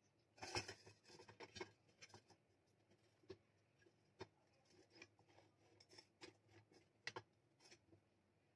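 Faint clicks, taps and scrapes of metal on metal as a drill motor's welded steel bracket is handled and fitted against the square steel tube column of a home-made drill press. There is a quick cluster of knocks in the first couple of seconds, then single taps spread out, with a sharper pair about seven seconds in.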